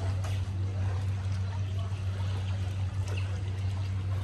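Shallow seawater lapping and trickling against a rock shoreline, over a steady low hum.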